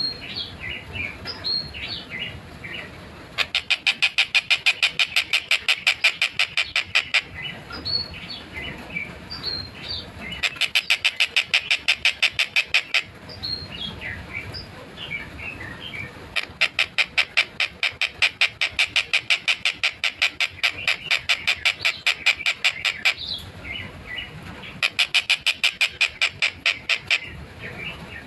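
Tengkek buto (stork-billed kingfisher) calling in four long, loud bursts of rapidly repeated notes, several a second, the fast tightly spaced 'speed rapat' delivery. Softer scattered chirps fill the gaps between the bursts.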